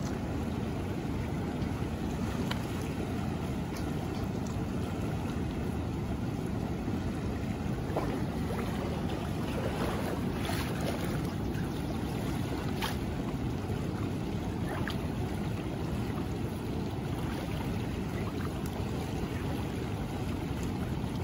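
Steady rush of a river's current around wading legs, with low wind rumble on the microphone.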